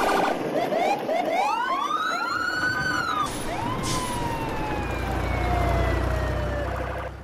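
Edited-in whistle sound effects: a quick run of overlapping tones that each rise and fall like a siren, then one long falling whistle over a low rumble, cut off abruptly near the end.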